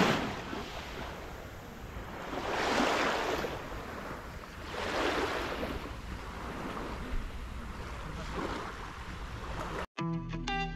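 Sea waves washing onto a beach, a surge swelling and falling away about every two to three seconds. About a second before the end it cuts abruptly to guitar music.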